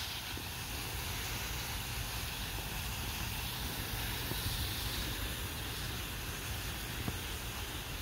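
Steady outdoor background hiss with a low rumble underneath and no distinct events.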